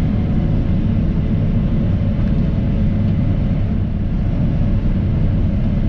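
Case IH 9250 Axial-Flow combine running at harvest load while unloading on the go, a steady low drone from engine, threshing rotor and unloading auger, heard from inside the cab.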